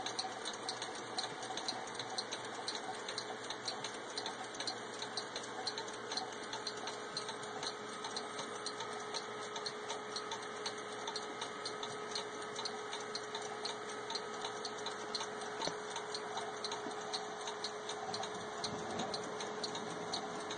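Several vintage mechanical clocks ticking together, their escapements giving a steady run of quick, overlapping ticks.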